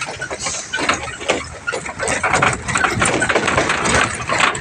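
A truck's engine running, heard from its open cargo bed, under dense irregular rattling and clattering.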